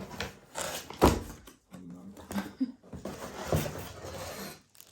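Unboxing noises: cardboard and plastic packaging rustled and handled while a plastic vacuum part is pulled out, with a sharp knock about a second in.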